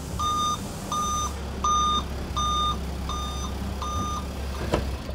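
Delivery van's reversing alarm beeping steadily, about one and a half beeps a second, over a low steady hum. The beeping stops about four seconds in, followed by a single click.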